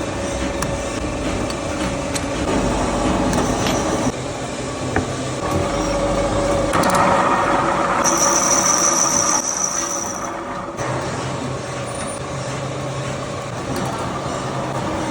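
Factory machinery running with a steady mechanical hum and scattered clicks and knocks, with a high whine that comes in for about two seconds past the middle.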